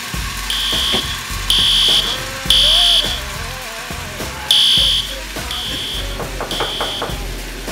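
Smoke alarm sounding its high-pitched evacuation pattern: three beeps a second apart, a pause, then three more, set off by food cooking on the stove. Background music plays underneath, and a few knocks on a wooden door come near the end.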